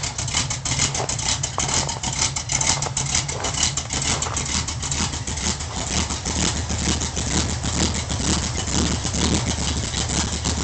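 Ford Gran Torino's 351 Cleveland V8 idling steadily. It runs smoothly after a full tune-up: carburettor gone through, fuel tank flushed and a better ignition fitted.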